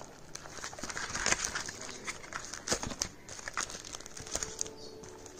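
Plastic packet around the kit's cleaning cloth crinkling with irregular sharp crackles as it is handled and opened.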